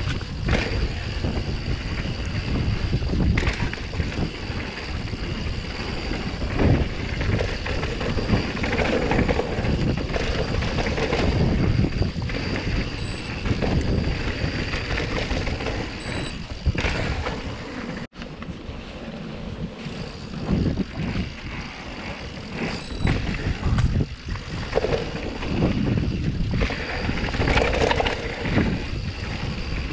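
Yeti SB150 mountain bike being ridden on a dirt trail: tyres running over rough ground with the bike knocking and rattling over bumps, under wind rushing over the microphone. The sound drops out for an instant just past the middle.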